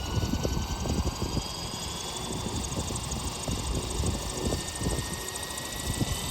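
Electric motor and rotors of a 12-cell Synergy 696 RC helicopter spooling up: a thin whine rising slowly and steadily in pitch over an uneven low rumble of air.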